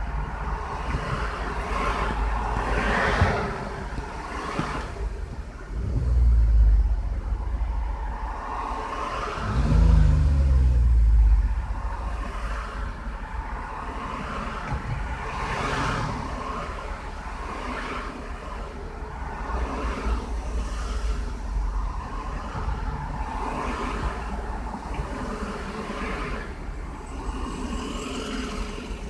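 Lexus RX300's 3.0 L V6 idling high with a steady low hum, and two louder swells about six and ten seconds in, the second rising and falling in pitch. The owner suspects the idle air control valve is not closing that last little bit.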